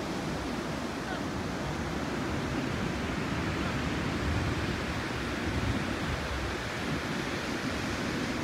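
Ocean surf breaking and washing up a sandy beach: a steady rush of waves that swells slightly a few times.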